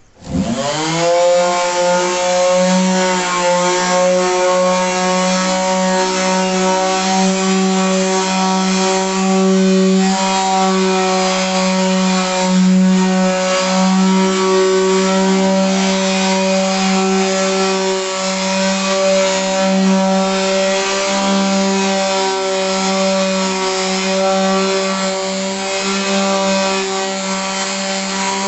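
Electric sander switching on and spinning up within the first second, then running steadily with its motor hum over the rasp of sandpaper on wood as old varnish is sanded off.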